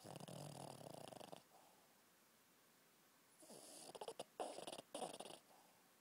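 A chubby Shih Tzu snoring in its sleep, with a fluttering rattle. There are two snores: the first comes at the start and lasts over a second, and the second begins about three and a half seconds in and lasts about two seconds.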